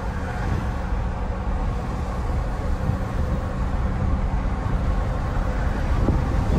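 Ford F-450 dually pickup driving on the road, heard from inside the cab: a steady low engine drone with tyre and road noise.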